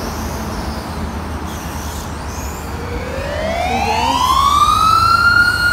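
Electric RC race car's motor whining, rising smoothly in pitch from about three seconds in as the car speeds up and peaking near the end, over a steady low rumble.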